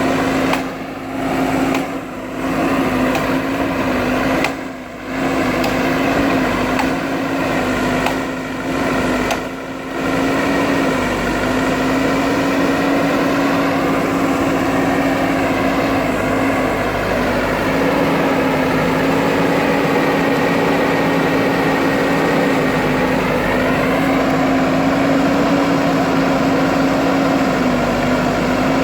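JCB 3DX backhoe loader's diesel engine running steadily under work, with a steady whine over it. The sound drops briefly several times in the first ten seconds. Its higher tones rise a little about three-quarters of the way through.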